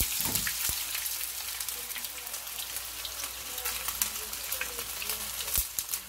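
A batter-coated whole black sea bream frying in hot oil in a pan: steady sizzling with dense crackling, and a couple of soft knocks, about a second in and near the end.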